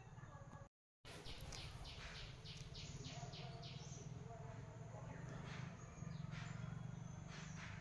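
Omelette frying faintly in an iron pan, with quick scrapes and swishes of a steel spatula as it is lifted and flipped, over a steady low hum. The sound cuts out briefly near the start.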